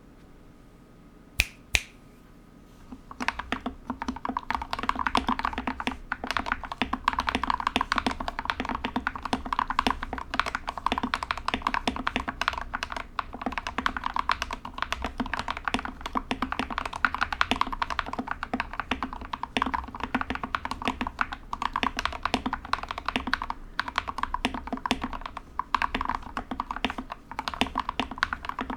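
Modded GK61 mechanical keyboard being typed on fast and continuously, its lubed switches clacking. Two sharp clicks come about a second and a half in, and the typing starts about three seconds in.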